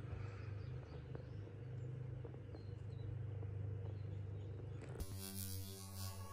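Faint outdoor lakeside ambience: a low steady rumble with a few faint high bird chirps. About five seconds in it cuts abruptly to a different sound with steady ringing tones.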